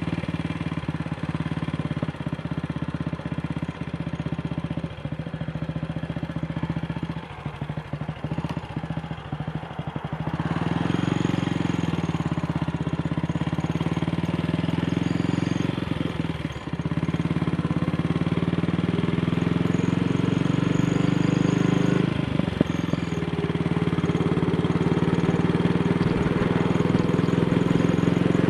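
AJS Model 8 single-cylinder motorcycle engine running under way, easing off about seven seconds in, then pulling harder and louder from about ten seconds, with brief dips near sixteen and twenty-two seconds. It runs without a misfire, its carburettor needle clip freshly reseated.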